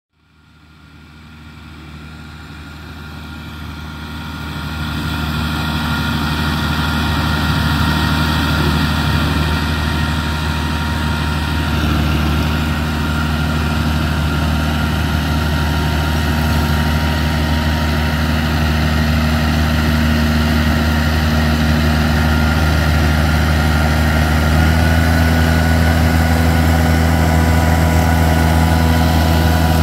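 Šálek Cabrio 47 hp compact tractor's engine running steadily under load, with its rear-mounted Stark KM 155 flail mulcher spinning as it mulches grass; a continuous drone. It fades in over the first five seconds, and the engine note rises slightly about 25 seconds in.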